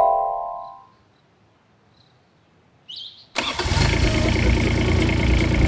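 A short run of rising musical notes fades out, then after a near-silent pause and a brief rising squeak an engine starts abruptly about three seconds in and runs on steadily with a low, even chug.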